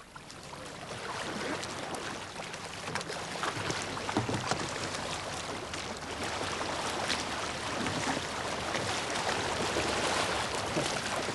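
Kayak paddle blades dipping and splashing in flat water as several kayaks turn with sweep strokes, with many small splashes over a steady wash of water. It grows louder over the first second or so.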